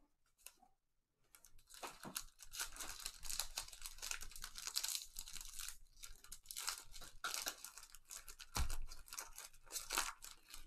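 Foil wrapper of a Panini Contenders Optic football card pack being torn open and crinkled by gloved hands: a dense, crackling run of tearing and rustling that starts about a second and a half in. A dull thump comes near the end.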